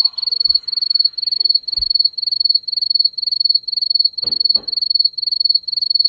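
A cricket chirping in a continuous high-pitched trill of rapid, even pulses. A few soft knocks sound faintly in the room behind it.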